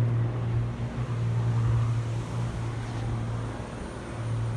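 Steady low drone of a Cessna 402C's twin piston engines and propellers as it climbs away after takeoff, easing off a little about three seconds in and coming back near the end.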